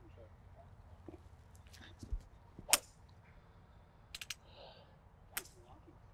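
Golf club heads striking balls on a driving range: two sharp impacts about two and a half seconds apart, with a few fainter clicks between them.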